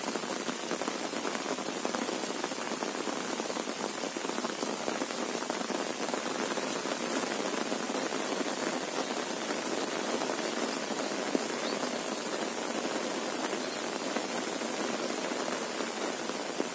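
Heavy rain falling steadily: a dense, even hiss of rain with a few separate drop ticks.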